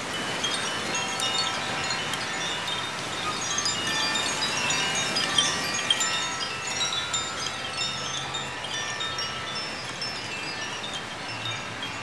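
Several Koshi chimes, bamboo tubes with tuned metal rods inside, ringing in the wind in many overlapping tinkling strikes, busiest around the middle. Wind blows over the microphone underneath.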